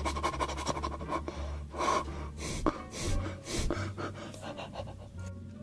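A man panting and gasping through a wide-open mouth in a run of short breathy huffs, reacting to the burning heat of the raw onion he is eating.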